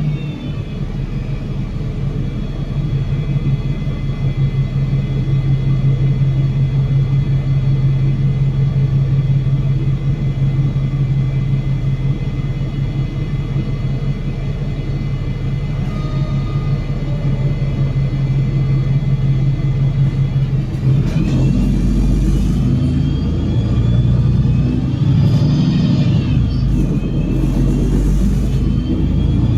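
Double-decker bus drivetrain, a Cummins L9 diesel and Voith DIWA automatic gearbox, running under way: a steady low hum with high whining tones over it. About 21 s in the sound changes as the bus pulls away or shifts, with whines gliding up and then down.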